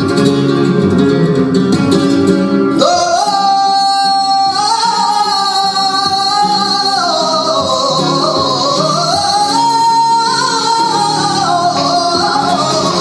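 Flamenco tangos: a flamenco guitar playing, joined about three seconds in by a male singer with long, ornamented held notes that slide up and down over the guitar.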